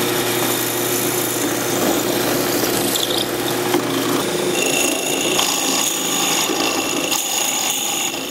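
Drill press running, its twist bit boring a hole lengthwise down the centre of a wooden dowel held in a vise, a steady rasping cutting noise. About halfway through, a high-pitched squeal joins in.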